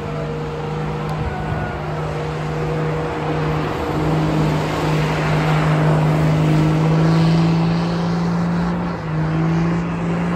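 Pickup truck engine held at high revs during a burnout, its tyres spinning against the pavement; the engine note stays steady and grows louder about four seconds in.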